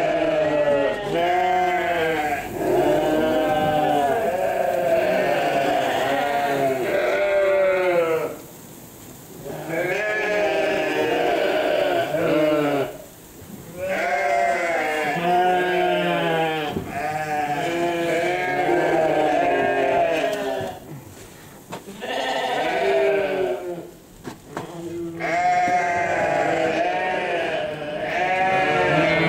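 A flock of sheep bleating over and over, many short calls overlapping, with a few brief lulls.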